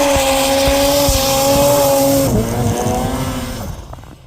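Snowmobile engine running hard at high, steady revs. About two seconds in, the revs drop sharply and the sound falls away to quiet near the end.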